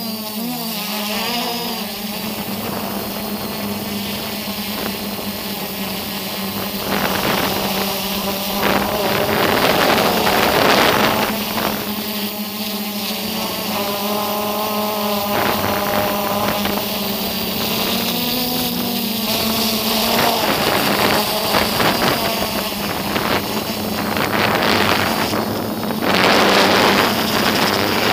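Multirotor drone's motors and propellers humming at a steady pitch, heard from the camera on the drone itself. Wind rushes over the microphone, louder about seven seconds in and again near the end.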